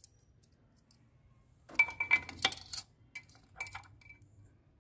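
Steel parts clinking as the spring-loaded loading/unloading control piston is fitted into the housing of a Yuken A70 variable piston pump: a quick cluster of small ringing metal clinks about two seconds in, then a few lighter single clinks.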